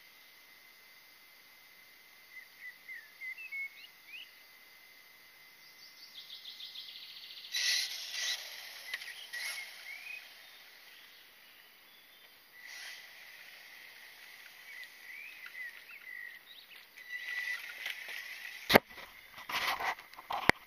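Outdoor ambience of birds chirping over a steady high-pitched tone. Near the end comes a sharp knock and rustling as the RC car is picked up.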